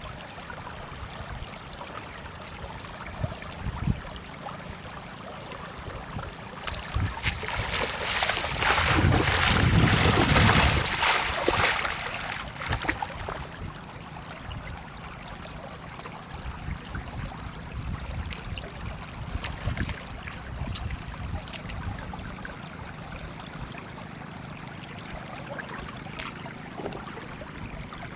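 Water sloshing and trickling, with a louder rush of noise building and fading about seven to thirteen seconds in.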